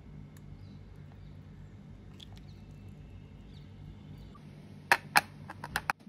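Metal spoon working thick brownie batter out of a ceramic bowl into an aluminium cake tin, over a low steady hum. Near the end come two sharp knocks a moment apart, then a quick run of four or five lighter taps, as the spoon knocks against the bowl and tin.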